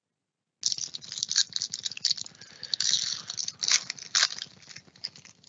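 A trading-card pack wrapper being torn open and crinkled by hand: a dense, irregular crackle of plastic that starts about half a second in.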